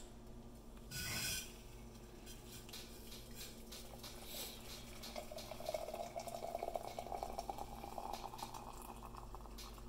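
Hot water poured from a stainless-steel kettle into the bottom water chamber of a stovetop moka pot, a steady splashing stream; about five seconds in, a hollow tone joins it as the chamber fills. A short clatter about a second in.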